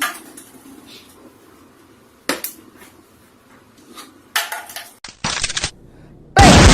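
Scattered sharp knocks and clatters, a couple of seconds apart. A short burst of noise follows, then a much louder one near the end.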